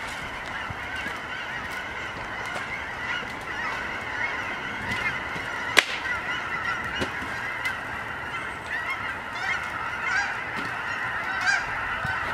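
A flock of geese honking in the distance, many overlapping calls going on without a break. A single sharp crack about six seconds in.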